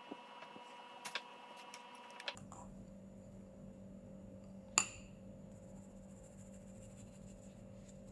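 A few light taps of a spatula against a glass mixing bowl, then one sharp ringing clink about five seconds in as a metal mesh sieve knocks against the bowl's glass rim, over a low steady hum.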